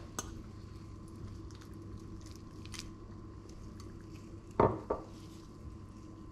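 A metal fork clicks and scrapes faintly against a ceramic bowl while a soft butter mixture is scooped out. About four and a half seconds in, the bowl is set down on the countertop with one sharp knock, followed quickly by a lighter one.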